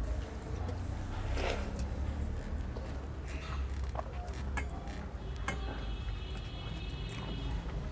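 Eating sounds from watery rice (pakhal bhat) and chicken curry eaten by hand: scattered small clicks and soft wet food and mouth noises over a low steady hum.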